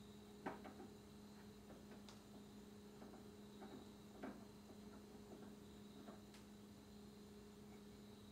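Near silence with a steady low electrical hum and a few faint clicks, the clearest about half a second in and just after four seconds.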